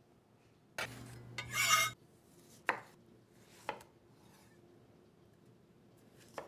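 A scraping rub lasting about a second, then three sharp knocks, a second or more apart, of a Dalstrong kiritsuke chef's knife cutting through a tomato onto a wooden cutting board.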